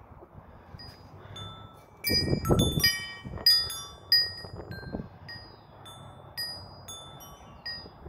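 Metal tube wind chime ringing, its tubes striking in a quick cluster about two seconds in, then sparser strikes that ring out and fade. A brief low rumble sits under the first cluster.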